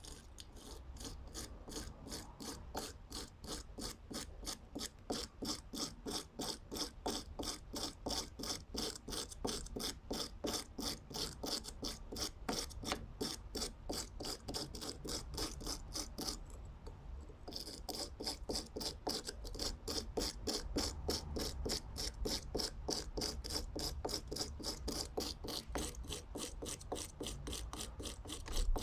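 Screwdriver being hand-filed in steady rasping strokes, about three a second, with a short pause about halfway through.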